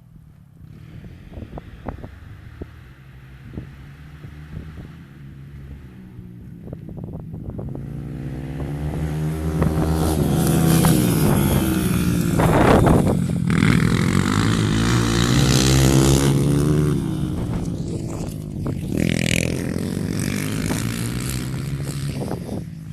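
Off-road motorcycle engine running with rising and falling revs. It grows louder about a third of the way in, is loudest through the middle, then eases off somewhat.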